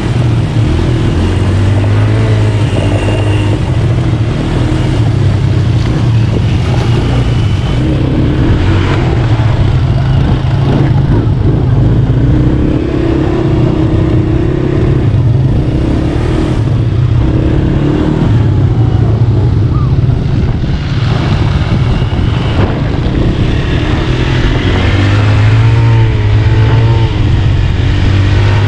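Four-wheeled ATV (quad buggy) engine running steadily while under way, its pitch rising and falling several times as the throttle changes.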